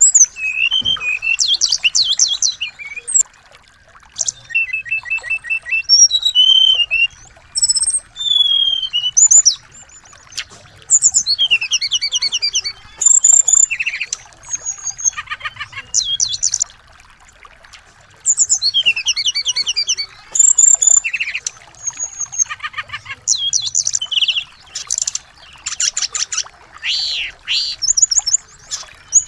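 Small songbirds singing: phrase after phrase of rapid high-pitched trills, chirps and slurred whistles, each a second or two long with short pauses between, over a faint steady hiss.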